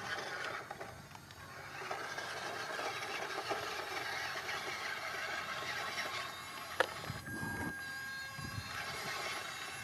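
Radio-controlled model truck's small electric motor and gears whining, with a sharp click about seven seconds in.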